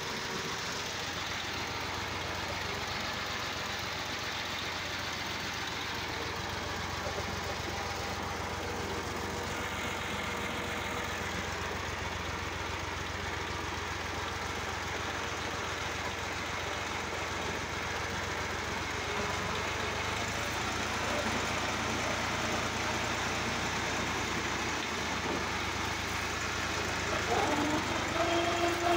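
Diesel tractor engine running steadily, heard from the driver's seat, a little louder in the second half.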